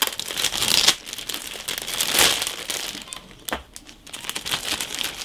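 Plastic kit bag crinkling and rustling in irregular bursts as it is handled and opened to free a plastic model kit sprue, loudest about two seconds in.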